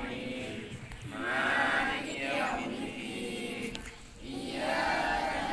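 A group of boys chanting shalawat, devotional songs in praise of the Prophet, together in phrases, with short breaks about a second in and about four seconds in.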